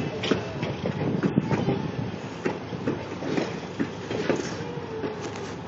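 Open-air passenger cars of a passing train rolling along the track, wheels clicking and clanking irregularly over rail joints over a steady low rumble, with a brief faint squeal a little past four seconds in.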